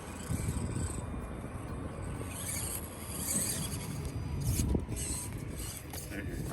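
Axial SCX24 micro RC crawlers' small electric motors and geared drivetrains whirring and creaking in patches as they crawl over rough ground, over a low rumble.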